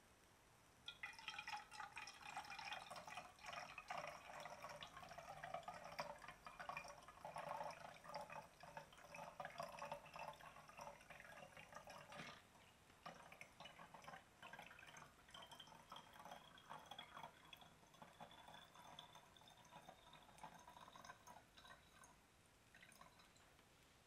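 Water poured from a glass carafe into the metal boiler of a Belgian balance siphon coffee maker, starting about a second in. The splashing thins past halfway to a trickle with a faint tone rising slowly as the boiler fills, then stops.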